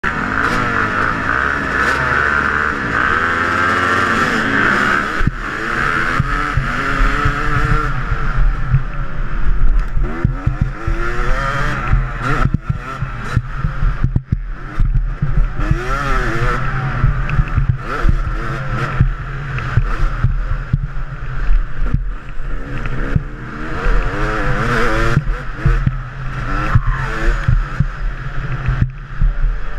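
Dirt bike engines at a motocross starting gate, heard from the rider's helmet, running steadily for about five seconds. The rider's own bike then pulls away at full throttle, its pitch rising and falling over and over through gear changes and throttle on the rough dirt track.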